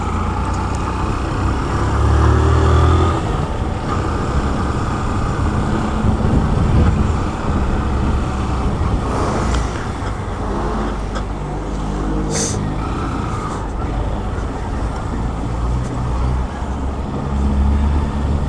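Motorcycle engine running as it is ridden at low speed through city streets, its note swelling and easing with the throttle. A brief high squeak comes about twelve seconds in.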